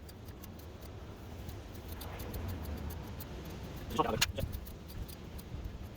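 A ratchet turning a thread tap in a tap socket to cut threads in a drilled steel hole, with scattered small metallic clicks over a low rumble and one louder sound about four seconds in.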